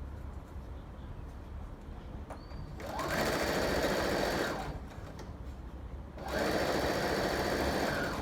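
Sewing machine stitching in two runs of a little under two seconds each, the first about three seconds in and the second about six seconds in.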